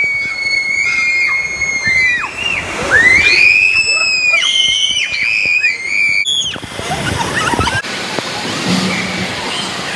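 Long, high-pitched screams that waver in pitch, in two stretches, over rushing water inside an enclosed tube water slide. After a sudden cut near the end there is an even wash of splashing water.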